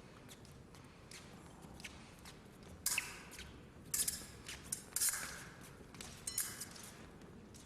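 Épée bout in progress: a handful of sharp metallic clatters and taps, blades striking and feet hitting the piste, about three, four, five and six seconds in, some with a brief ring.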